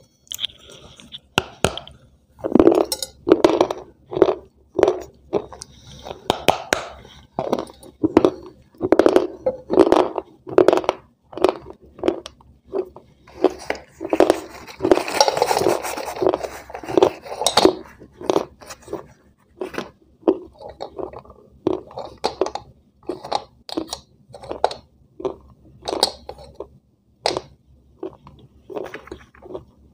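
Eating close to the microphone: repeated crunchy bites and chewing, with rustling of a paper wrapper and clinks on a steel plate, busiest about halfway through.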